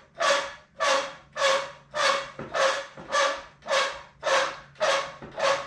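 Hydraulic lift cart being pumped up by hand or foot: about ten even pump strokes, nearly two a second, each a short rasping stroke.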